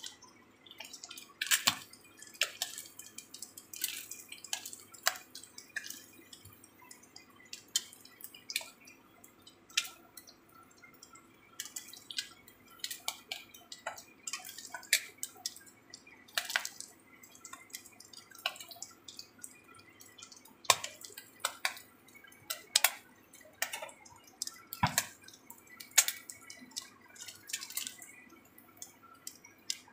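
Egg-battered pieces of jenang frying in shallow oil in a wok: irregular popping and crackling of spattering oil over a faint sizzle.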